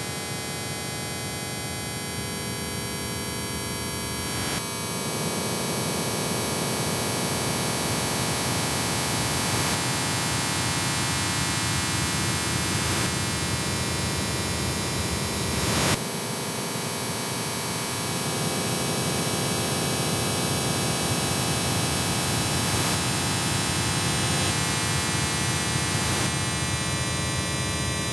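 Industrial noise music: a dense electronic wall of noise with many steady humming tones layered through it. The texture changes abruptly about four and a half seconds in and again about sixteen seconds in.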